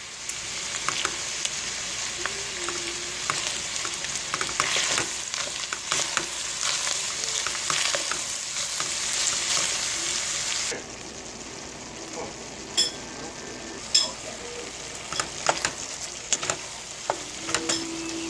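Food sizzling in a frying pan while being stirred, with many sharp clicks of a utensil against the pan. About ten seconds in, the sound drops suddenly to quieter sizzling with only a few separate clicks.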